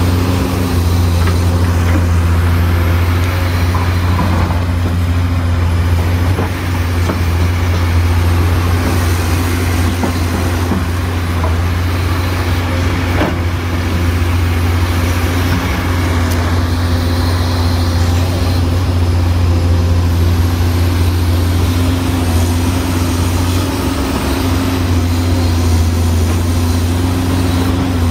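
Komatsu PC220 hydraulic excavator's six-cylinder diesel engine running, a loud steady low drone, while the boom and arm swing out to dig.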